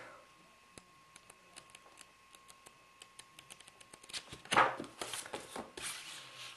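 Handling of paper manuals and accessories: a few faint ticks, then from about four seconds in, louder rustling and knocks as items are moved.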